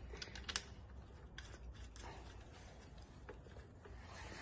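Faint handling sounds of parts being fitted to an aluminium extrusion printer frame: a few light clicks, mostly in the first two seconds, and soft rubbing over a low hum.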